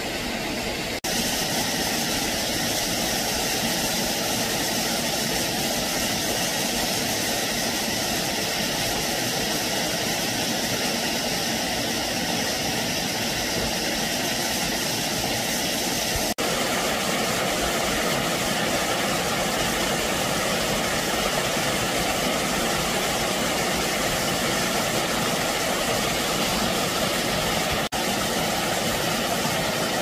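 Steady rush of a mountain stream's flowing water, cutting out for an instant three times.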